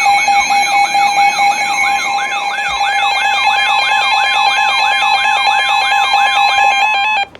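Emergency alert tones from a phone receiving a Wireless Emergency Alert for a flash flood warning: a steady alert tone with a second tone joining, under a siren-like falling sweep that repeats about three times a second. The tones cut off suddenly about seven seconds in.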